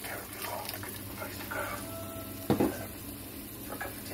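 Chicken pieces simmering and sizzling in green salsa in a frying pan, a steady fizz. About two and a half seconds in comes one louder knock of the metal spoon against the pan.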